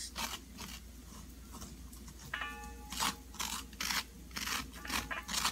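Utensil scraping cooked spaghetti squash strands from the inside of its shell, a string of short scrapes. A brief pitched tone sounds about halfway.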